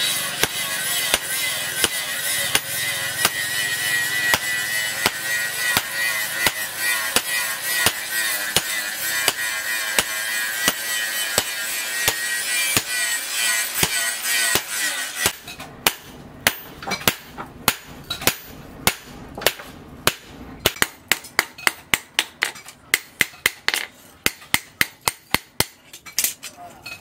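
Hand hammer striking a steel cleaver blank on an anvil, repeated blows flattening the blade as it goes from red-hot to cooled. For the first half a steady music bed runs under the blows. About halfway through it drops away and the strikes stand out sharp and clear in quick runs.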